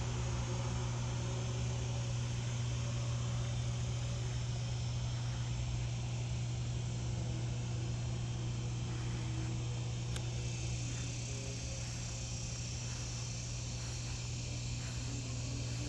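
Insects chirping in a steady, evenly repeating pattern over a steady low hum.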